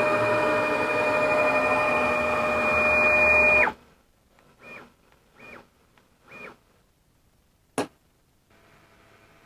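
AxisCreat 6060 CNC router running with a steady, loud whine made of two tones, which cuts off abruptly a little over halfway in. Then come three faint short whirs of the machine moving, and a single sharp click near the end.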